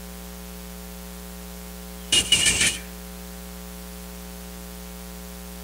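Steady electrical mains hum, with a brief rustle lasting under a second about two seconds in.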